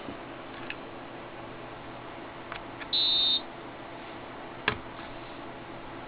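A single high electronic beep lasting about half a second from a Meade Autostar telescope handbox, with a few sharp clicks of its keys being pressed around it.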